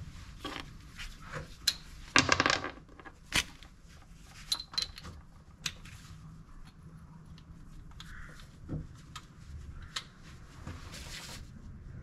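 Metal hand tools and parts clinking and knocking during work on a car's rear shock absorber mounting, with a short rapid rattle about two seconds in and scattered single clicks after it.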